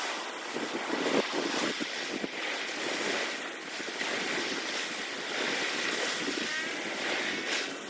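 Steady wash of wind and waves, an even rushing noise with no distinct events.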